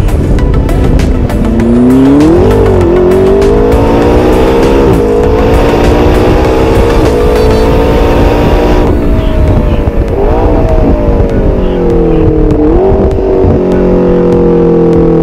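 McLaren 650S's twin-turbo V8 heard at the exhaust, pulling through the gears: the pitch climbs and drops sharply at each gear change, then falls with short throttle blips on the way down, settling to a steady low note near the end.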